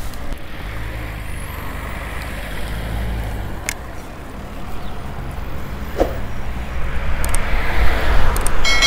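Road traffic passing on a busy main road, heard from a moving bicycle over a steady low rumble; the noise swells in the last few seconds as a car passes close. A short chime sounds at the very end.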